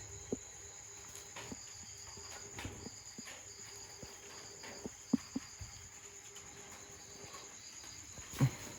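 Night insects trilling steadily in a high, continuous buzz. Over it come a few sharp taps, around two in the middle, and a louder dull thump near the end.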